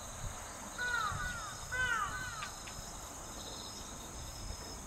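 A bird calling in two quick runs of short arched calls, about a second in and again about two seconds in, over the steady chirring of insects.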